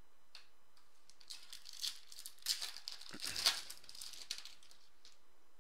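Foil wrapper of a Topps Chrome card pack crinkling and tearing as it is ripped open by hand. The sound comes in several crackly bursts over about three seconds, loudest near the middle.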